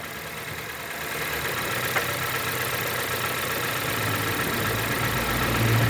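Honda car engine idling just after the automatic transmission is shifted from neutral into drive, tested for a clunk on engagement; a light click about two seconds in, then a low hum that builds toward the end.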